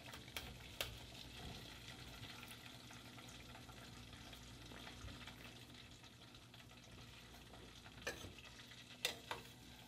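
Faint sizzle of hot frying oil as breaded chicken is lifted out of a stainless steel pot. A few light clicks of metal utensils against the pot come near the start and twice about a second apart near the end.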